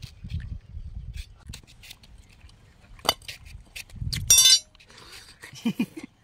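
Scattered clinks and knocks of utensils being handled, with one loud, sharp ringing clink a little over four seconds in.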